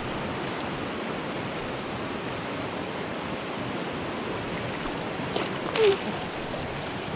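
Swift, high mountain river water rushing steadily over rocks, with one brief louder sound about six seconds in.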